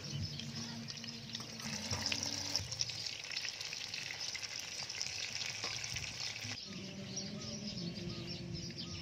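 Hot oil sizzling and crackling in a wok as bread slices topped with tiny shrimp and pandan batter fry.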